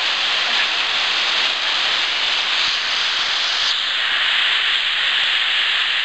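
Waterfall pouring close by, a steady hissing rush of falling water.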